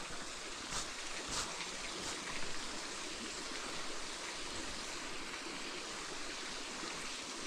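Steady rushing of river water, with a few faint clicks in the first couple of seconds.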